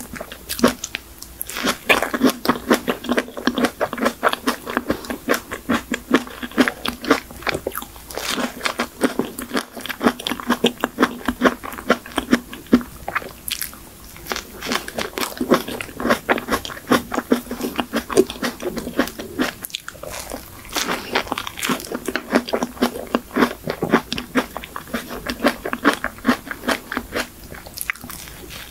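Close-miked biting and chewing of a shine muscat folding cake, soft cake and cream with green grapes. It is a continuous quick run of small mouth clicks and smacks, with crunchy bites among them.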